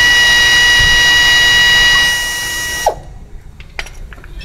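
Electric parking brake motor on a 2016 Toyota Alphard's rear caliper running with a loud, steady whine. About three seconds in it stops, with a short falling spin-down, and a few light clicks follow.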